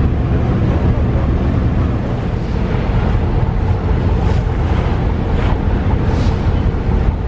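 Steady low rumble of a passenger ferry's diesel engine under way, mixed with wind buffeting the microphone and water rushing along the hull. A few brief splashes of wash come through in the second half.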